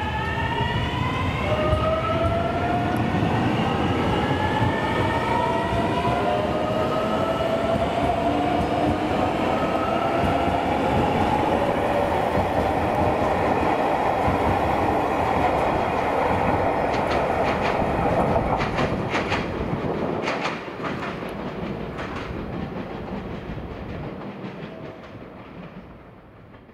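JR Shikoku 8000 series electric express train pulling away: its motors whine in several tones that climb steadily in pitch as it gathers speed, then the wheels clatter over rail joints and the sound fades as the train draws away.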